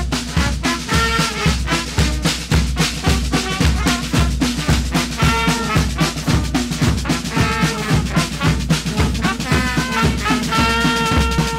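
Carnival fanfare band playing a tune: trumpets and other brass carry the melody in held notes over drums beaten with mallets, keeping a steady beat of about two strokes a second.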